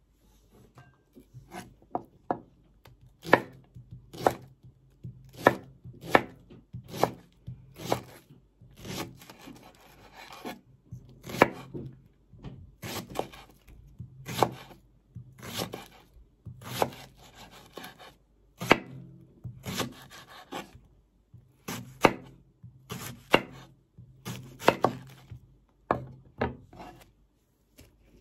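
Kitchen knife slicing banana blossom: a run of sharp cutting strokes, about one or two a second.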